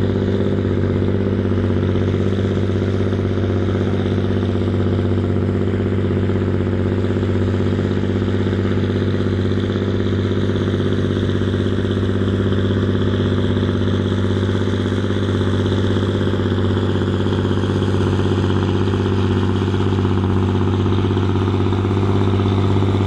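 John Deere 8530's straight-piped six-cylinder diesel running hard and steady, holding one constant pitch as the tractor drags a weight sled down the pulling track under full load.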